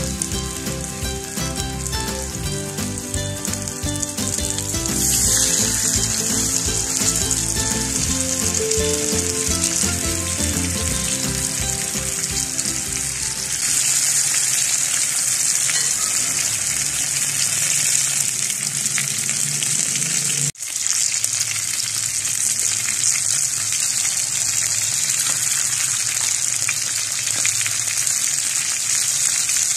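Masala- and flour-coated fish pieces sizzling in shallow oil on a flat tawa griddle: a steady, loud frying hiss.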